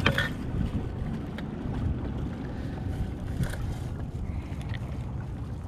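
Wind buffeting the microphone and small waves lapping against the hull of a canoe, with a few light clicks and knocks, sharpest right at the start.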